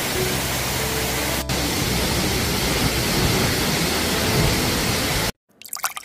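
Waterfall pouring down a rock face: a steady rush of falling water that cuts off abruptly about five seconds in, leaving a moment of near silence.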